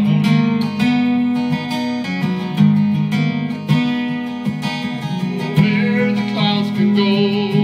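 Steel-string acoustic guitar strummed in a steady chord rhythm.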